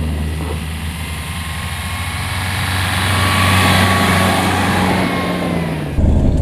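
Engine of a Nissan four-wheel-drive pickup driving along a snowy track, a steady low hum that swells as the truck passes close, with tyre noise on the snow. Near the end the sound changes abruptly to an engine heard from inside a vehicle's cab.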